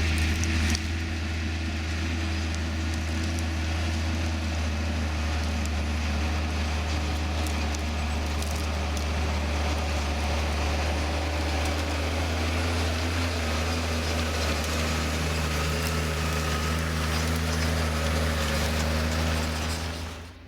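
New Holland tractor's diesel engine running steadily while ploughing, a constant low hum with a steady pitch. It falls away just before the end.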